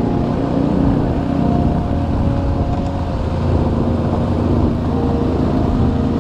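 Motorcycle engine running steadily while riding, a dense low rumble.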